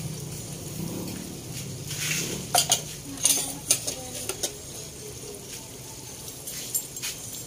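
Boiled chicken intestines (isaw) deep-frying in hot oil in a wok, sizzling steadily. Metal tongs stir at first, and a run of sharp clicks and pops comes about two and a half to four and a half seconds in.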